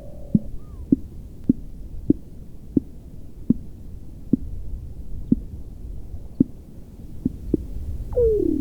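Weddell seal calling: a series of short, low pulses that slowly space out, then near the end one long call that glides down in pitch.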